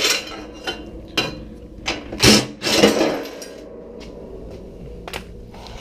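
Power impact wrench hammering in several short bursts in the first three seconds, spinning the rusty bracket bolts out of a steel bumper.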